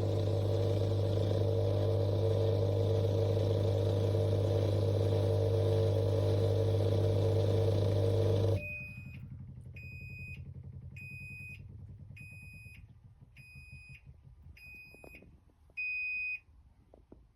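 SAMKYO T40 countertop dishwasher running with a steady hum, which cuts off abruptly about halfway through. Its control panel then beeps seven times, short high beeps about a second apart, the last one longer and louder.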